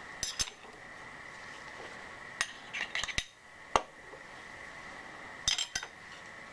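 Light metallic clinks and taps of steel machinist's parallels and workpieces being handled and set down in a milling-machine vise: a handful of short, sharp clicks spread over several seconds. A faint steady high whine runs underneath.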